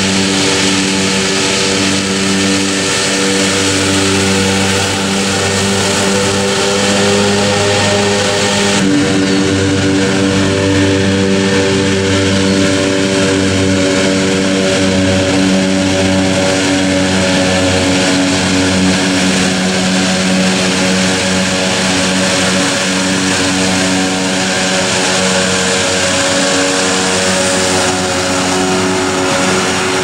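Self-propelled hay mower's 500 hp John Deere diesel engine running at a steady speed while its three Case IH RD163 disc mowers spin and cut, a steady engine hum under a loud hiss. The sound shifts abruptly about nine seconds in.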